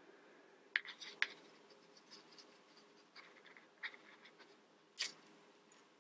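Small plastic model kit pieces being handled, with a few sharp plastic clicks and light scraping; the loudest click comes about five seconds in.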